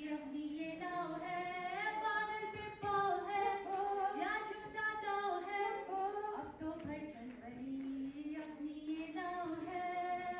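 Women singing a song unaccompanied into handheld microphones over a hall PA, the melody held in long gliding notes.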